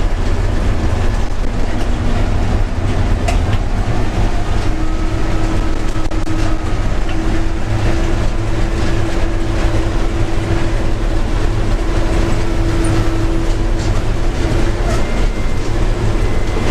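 Bizon Z056 combine harvester heard from inside its cab while cutting: the SW-400 diesel engine running steadily under load with the threshing unit engaged, a constant low rumble with mechanical rattle. A steady whine from the running machinery comes in about four seconds in.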